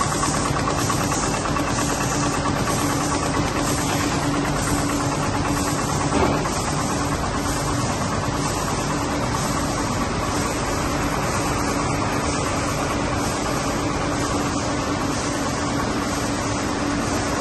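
Nilpeter FB 3300 servo-driven UV flexo label press running: a steady mechanical hum with a low steady tone and a higher steady whine, and a faint regular pulsing about twice a second. A single short knock about six seconds in.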